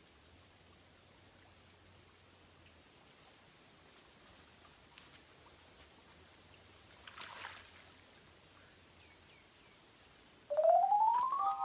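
Faint outdoor ambience with a steady, high, insect-like buzz and a brief rustle of noise about seven seconds in. Near the end a loud electronic tone rises in pitch and settles into a held chord as outro music begins.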